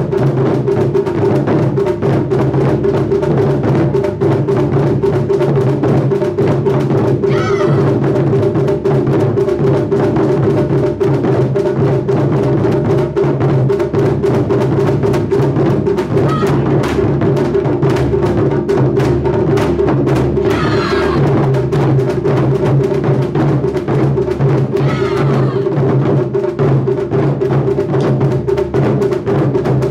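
Japanese taiko ensemble of several nagado-daiko barrel drums with tacked hide heads, beaten hard with wooden bachi sticks in a loud, fast, unbroken rhythm, with a steady deep drum resonance underneath.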